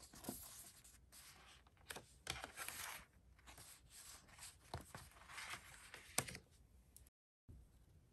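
Kraft paper envelopes rustling and sliding against each other as they are handled, with a few light taps. The sound breaks off briefly near the end.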